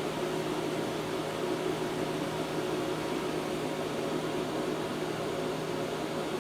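APT 250-amp DC inverter welding machine switched on but not welding: its cooling fan gives a steady hum and hiss.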